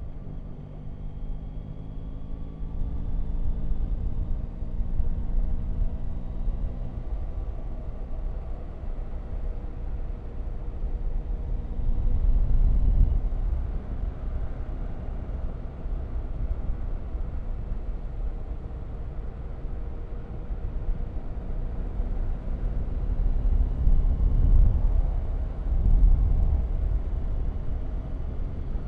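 Motorcycle engine accelerating, its pitch rising over the first several seconds, then a steady low rumble of engine and wind on the microphone as the bike rides on at speed.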